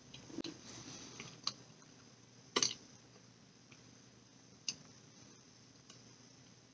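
Quiet chewing and lip-smacking of a mouthful of cheesecake, with a few soft clicks, the sharpest about two and a half seconds in.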